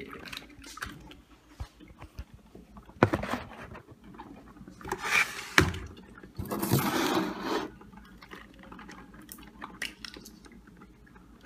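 Kitchen counter sounds of a ceramic mug and small plastic coffee-creamer cups being handled: a sharp knock about three seconds in, a click a little later, then a scraping rush about a second long near the middle. Faint small crinkles follow as the foil lid is peeled off a creamer cup.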